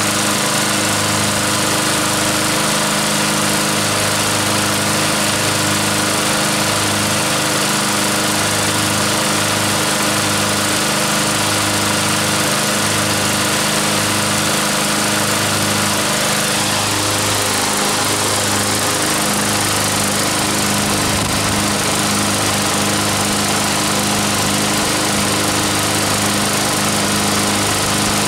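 Two walk-behind lawn mowers' small four-stroke engines running together, unloaded, at a steady governed speed. The engine note shifts slightly about seventeen seconds in.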